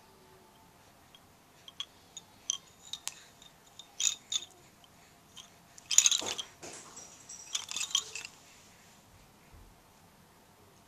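Bead-and-rod baby rattle toy being shaken and handled, its balls and rods clacking in scattered clicks and short rattling bursts, loudest about six seconds in.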